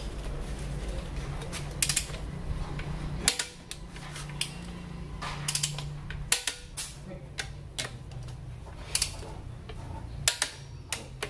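Socket ratchet wrench clicking in short irregular runs while connecting-rod bolts in an engine block are tightened, with sharp metallic ticks over a low steady hum.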